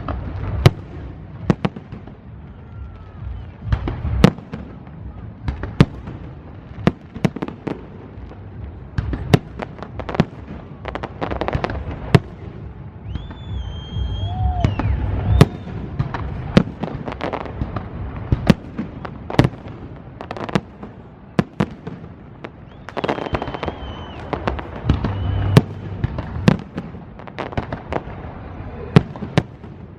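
Fireworks going off: a long run of sharp bangs from shells bursting overhead, irregularly spaced, several every few seconds, with short brief tones at times between them.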